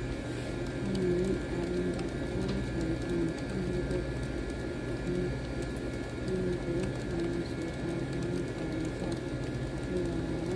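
A pigeon or dove cooing in repeated low phrases, with faint keyboard typing clicks.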